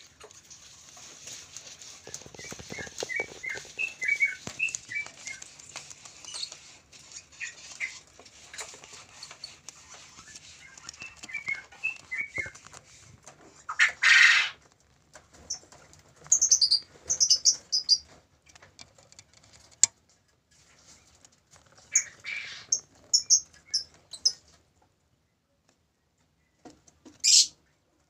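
Lovebirds in a nest box: runs of quick, soft high peeps, then from about halfway on several short, loud, harsh screeches.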